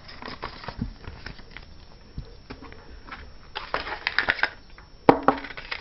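Paper and packaging rustling and crackling as the contents of the adapter's box are handled, with a denser run of crinkles around the middle and a sharp click about five seconds in.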